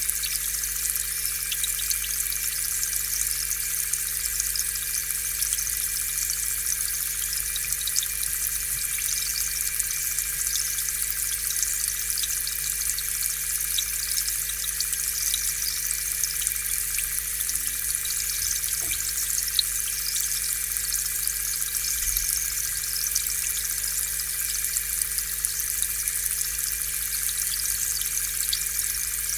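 Aquarium air pump running steadily, with a steady hum under the hiss and crackle of air bubbles rising through the tank water.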